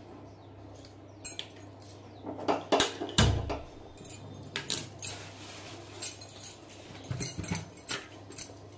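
Scattered sharp metallic clicks and knocks from handling an empty iron kadai on a steel gas stove, heaviest with a deep knock about three seconds in, over a low steady hum.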